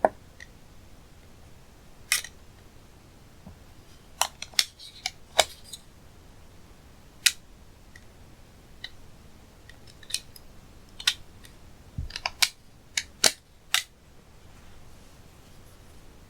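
A string of sharp clicks and snaps, about fifteen, irregularly spaced, bunching into quick runs about four seconds in and again near the end, then stopping.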